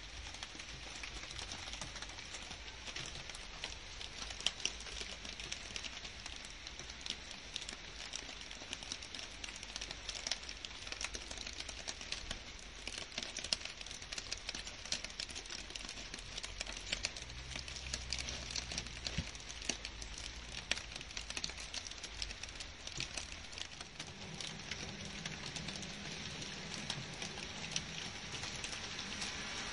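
Steady rain falling on garden leaves and grass: a constant hiss with many separate drops ticking and pattering.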